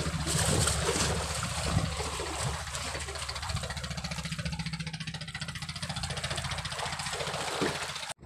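An engine running steadily with a fast, even chugging; it cuts off abruptly at the very end.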